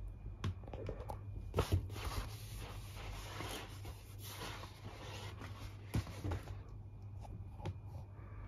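Rustling and scraping for several seconds, with a few sharp clicks, over a low steady hum.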